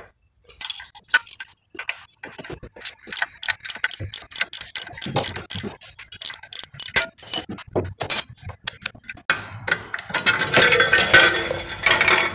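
Ratchet spanner clicking and metal tools clinking as a 14 mm nut holding the motorcycle silencer to the chassis is undone, with a dense run of rapid clicking near the end.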